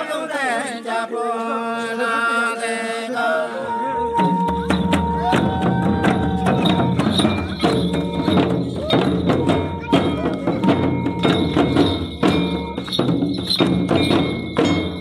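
A group of men singing a Santali folk chant unaccompanied, then, about four seconds in, hand-beaten barrel drums (tumdak') and a large drum come in with a fast, steady beat under the voices.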